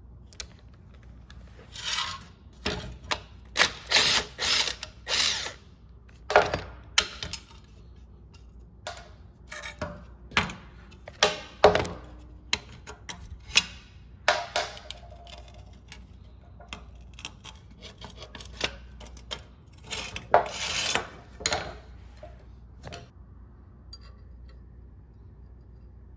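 A steel clutch pedal assembly being taken apart on a metal bench: irregular clanks, clicks and short rattles of metal parts and hand tools. The clatter comes in busy spells, the busiest at the start and again about twenty seconds in, and dies away near the end.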